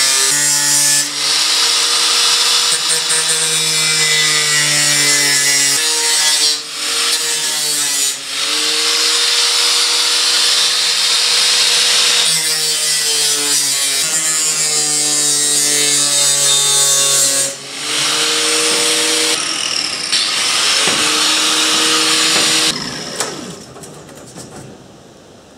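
Angle grinder with a cutting disc slicing through corrugated steel sheet: a loud grinding over the whine of the motor, easing off briefly a few times as the cut moves along. About 23 seconds in it is switched off and the disc spins down.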